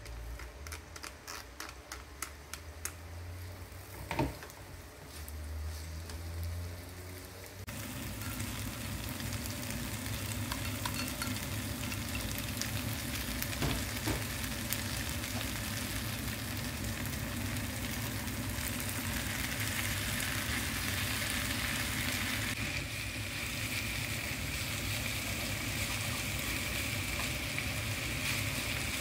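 Sliced onions tipped into a frying pan with light clicks and taps. About eight seconds in a steady sizzle of frying starts suddenly as onions and shimeji mushrooms cook, stirred with wooden chopsticks that tap now and then against the pan.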